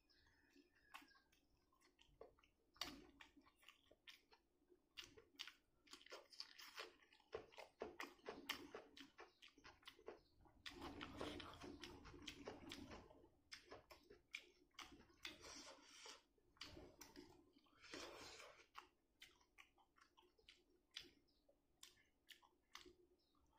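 A person chewing mouthfuls of rice and egg curry eaten by hand, close to the microphone: wet mouth clicks and smacks with some crunching, in bouts of denser chewing.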